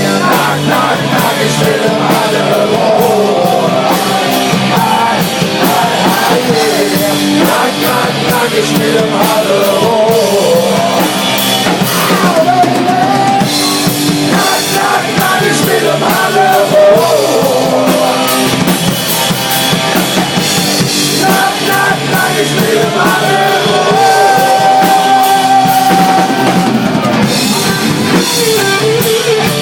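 A rock band playing live, with a drum kit keeping a steady beat under pitched melody lines. The recording is loud and has little deep bass.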